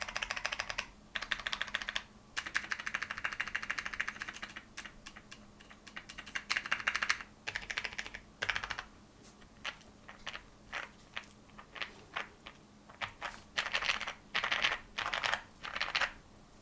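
Typing on a Zoom65 mechanical keyboard with Tecsee Oreo switches lubed with 205G0. Fast runs of keystrokes alternate with pauses, and a stretch of slower, separate key presses comes in the middle.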